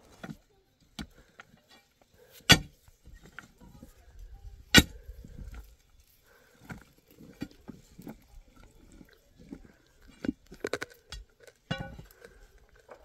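Tools striking rock while stones are broken up: two loud ringing blows about two seconds apart, then scattered lighter knocks and scrapes in the second half.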